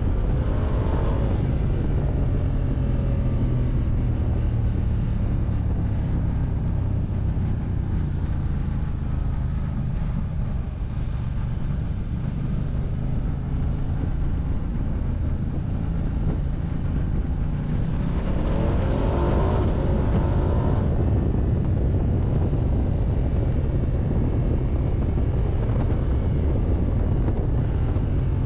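Ducati Diavel 1260 S's V-twin engine running under way, heard from the bike-mounted camera. It eases off in the middle as the bike slows. About two-thirds of the way in it revs up with a rising pitch as the bike accelerates.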